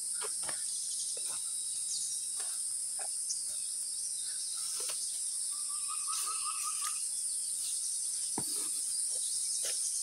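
Forest insects droning in a steady, high-pitched chorus, with a short trill in the middle and faint scattered bird calls.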